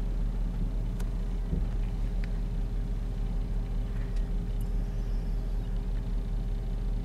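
A car engine running, heard from inside the cabin: a steady low rumble with a faint steady hum and a few faint ticks.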